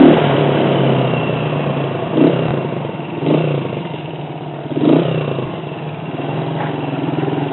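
Honda CG 125 Titan's single-cylinder four-stroke engine dropping from a loud pull to a low, steady running note as the throttle closes, with three short blips of the engine about two, three and five seconds in.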